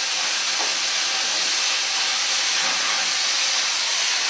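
Oxy-fuel cutting torch cutting through steel: a steady, even hiss of the gas jet and burning metal.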